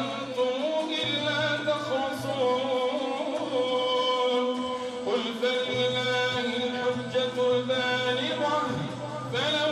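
A man's voice chanting melodic Quran recitation into a microphone, with long held notes that waver and slide in pitch, broken by short pauses for breath.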